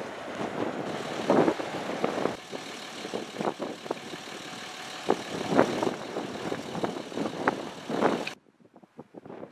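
Strong gusty wind buffeting the microphone in repeated rough surges, over the low rumble of a jet airliner climbing away. The sound cuts off to near silence about a second before the end.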